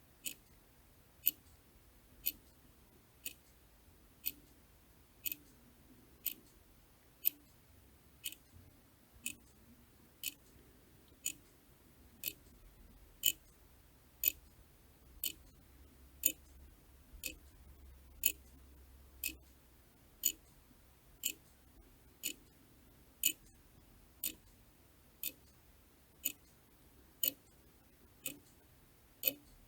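A clock ticking steadily, one sharp tick about every second, some ticks louder than others.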